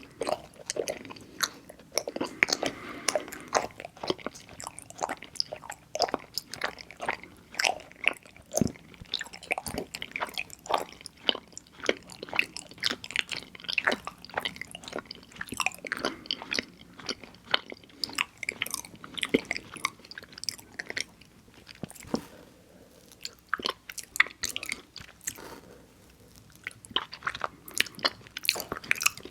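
Close-miked chewing of mochi ice cream: soft, sticky mouth smacks and wet clicks. The sounds come in irregular bursts, thinning out for a few seconds about two thirds of the way through.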